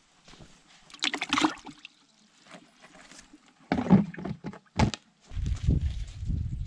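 A traíra splashing in a bucket of muddy water as it is dropped in, followed by a few sharp knocks and snaps as the bucket's plastic lid is pressed shut. Near the end a steady low rumble sets in.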